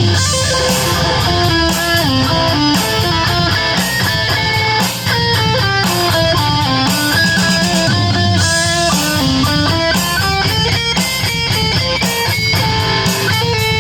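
Electric guitar played through a distortion effect: quick single-note melodic lines moving up and down, over a steady low backing.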